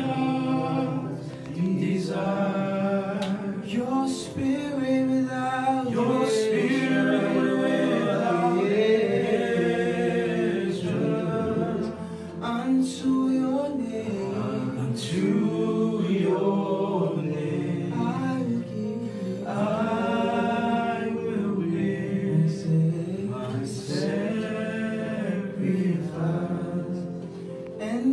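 Men's voices singing a gospel worship song, holding long notes.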